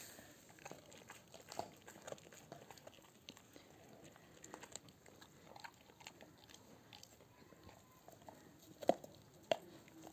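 Dog gnawing on a large bone held between its paws: scattered faint crunches and scrapes of teeth on bone, with two louder cracks near the end.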